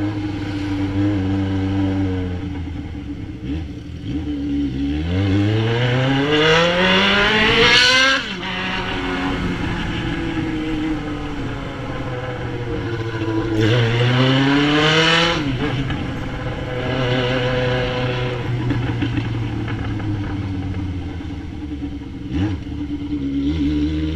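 Yamaha XJ6's inline-four engine through an Atalla 4x1 aftermarket exhaust, running at a steady low note and revved up twice. About five seconds in and again about thirteen seconds in, the pitch climbs for two to three seconds, is loudest at the top, then drops sharply as the throttle is closed. A third rev starts near the end.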